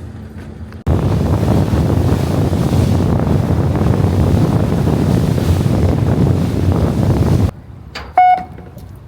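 Loud wind buffeting the microphone on a boat at sea. It cuts in suddenly about a second in and cuts off suddenly near the end. Just before the end comes a short, loud, high beep.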